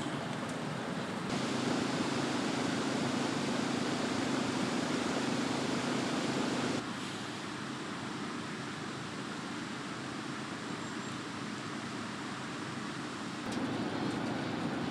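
Steady rushing noise with no distinct events, stepping abruptly louder about a second in, softer about seven seconds in and louder again near the end, as at cuts between shots.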